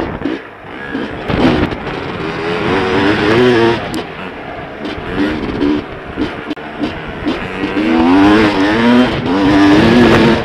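Dirt bike engine heard close up from on board, revving up and backing off again and again as it is ridden along the trail.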